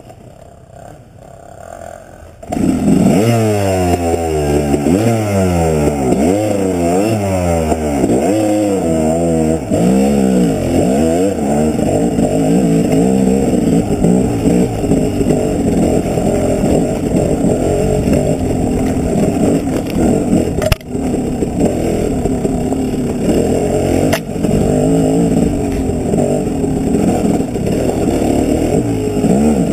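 Dirt bike engine heard from the rider's helmet: after a quieter first two seconds or so, it revs hard with the pitch rising and falling again and again as the throttle is worked, then settles into steadier high running. Two sharp knocks come about two-thirds of the way through.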